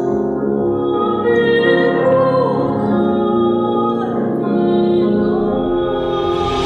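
Music: a slow melody of long held notes over sustained accompaniment.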